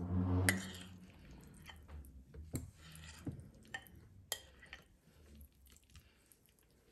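A metal spoon scooping thick, wet baba ganoush out of a ceramic bowl onto a ceramic platter: soft wet squelches and a scatter of light clinks and taps as the spoon strikes the dishes, fewer toward the end.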